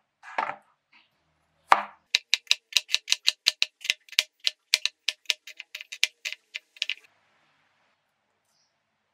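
Kitchen knife slicing shallots on a plastic cutting board: quick, even knocks of the blade on the board, about five a second, stopping about seven seconds in. One sharper knock comes just before the slicing starts.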